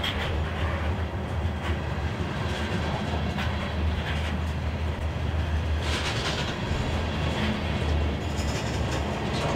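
Freight cars (covered hoppers and tank cars) rolling past: a steady low rumble of steel wheels on rail, with scattered clicks as the wheels cross rail joints.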